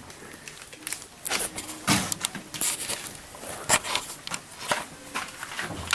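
Irregular rustles, scrapes and short clicks of a handheld camera being moved and handled, with a few sharper knocks about two and four seconds in.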